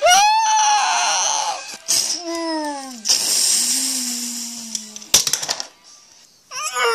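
A voice crying out in pain in several drawn-out wails and screams, one rising and held at the start, others falling in pitch. A few sharp knocks come about five seconds in.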